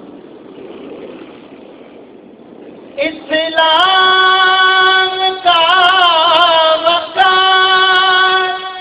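A man's high voice singing a soz-o-salam, a Shia elegiac recitation, through a microphone. After about three seconds of quieter background sound he holds one long high note, wavering in the middle and broken briefly a couple of times, until near the end.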